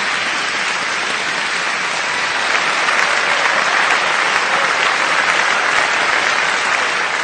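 Recorded crowd applause, a dense steady patter of many hands clapping, loud throughout and swelling a little in the middle.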